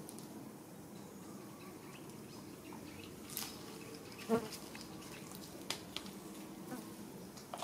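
Quiet outdoor ambience with a steady low buzz, a few soft clicks and rustles as baby macaques grab and pull at a sprig of leaves, and one short low-pitched sound a little past halfway.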